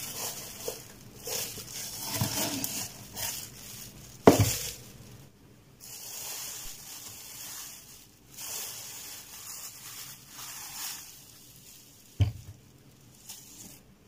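Thin plastic bag crinkling and rustling as it is handled, in irregular bursts. A sharp knock about four seconds in and another near the end.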